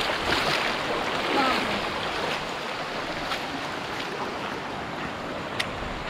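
Fast-flowing stream water rushing over rocks, a steady even rush.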